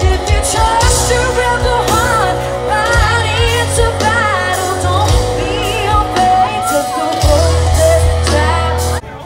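Live country music through a festival PA: a female singer's vocal over a full band with a heavy bass line. It cuts off abruptly near the end.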